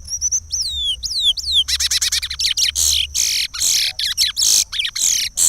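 Chestnut-bellied seed-finch (curió) singing the Pará regional song: a few clear whistles that fall in pitch, then a loud, fast run of rapid notes.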